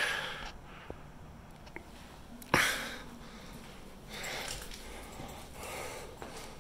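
A person breathing and sniffing close to the microphone, with one sharp sniff about two and a half seconds in and softer breaths after it.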